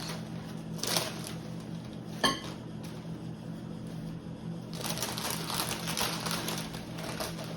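Plastic food packaging and storage containers being handled: a short rustle, a sharp clack just after two seconds, then continuous crinkling from about five seconds, over a steady low hum.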